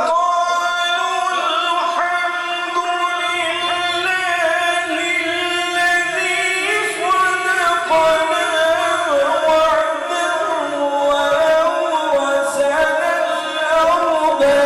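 A qari's voice in long, drawn-out melodic recitation, holding and ornamenting single vowels for several seconds at a time, with no instruments.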